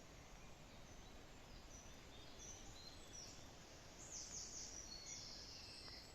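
Faint woodland birdsong: scattered high chirps and short whistled notes, with a brighter phrase of quick falling notes about four seconds in, over a steady low hiss of background noise.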